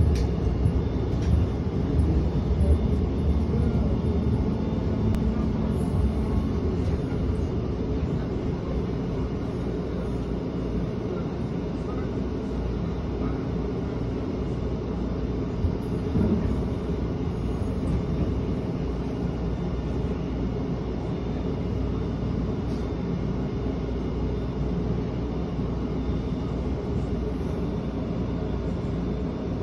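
SEPTA Route 10 trolley, a Kawasaki light rail car, running along street track, heard from inside the car: a steady rumble of wheels and motors, a little louder in the first several seconds, with a faint hum early on and a single click about halfway through.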